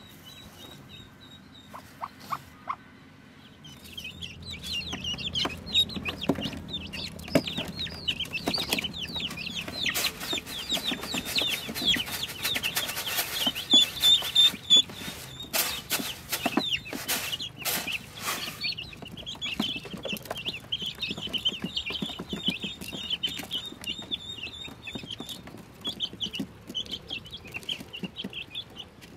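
A brood of newborn Pekin ducklings peeping constantly, many short high calls overlapping. The peeping starts about four seconds in, after a quieter opening. Sharp clicks and knocks are scattered through the middle of it.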